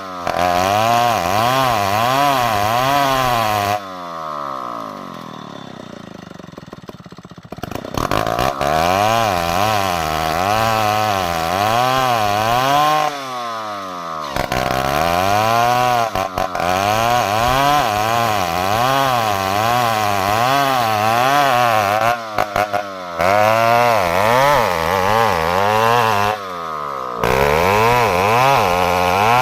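Stihl chainsaw engine running hard while sawing ironwood, its pitch wobbling up and down over and over. About four seconds in it falls away to a lower, quieter pitch, then picks back up to full speed near eight seconds.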